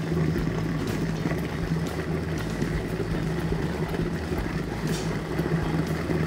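Robot Coupe Robot Cook heated blender running with its blade at high speed, a steady motor hum with churning. It is whipping an egg-yolk hollandaise as brown butter is added.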